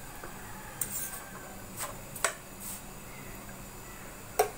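A steel spoon clinking and scraping against a nonstick frying pan while stirring chopped tomatoes in oil: about five short knocks, the loudest near the end.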